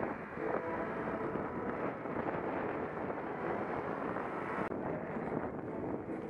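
Steady rush of wind on the microphone and road noise from riding a bicycle in traffic, with a sudden break about four and a half seconds in.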